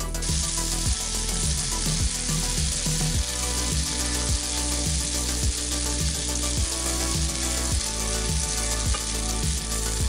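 Floured beef liver slices sizzling steadily as they fry in foaming butter in a frying pan, over background music with a steady beat.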